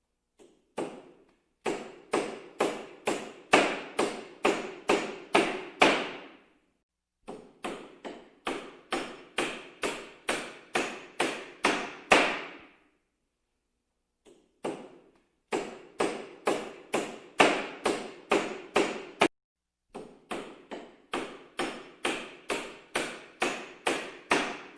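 Hammer blows striking repeatedly, about two to three a second, in runs of several seconds separated by short pauses. Each blow is sharp with a brief ring.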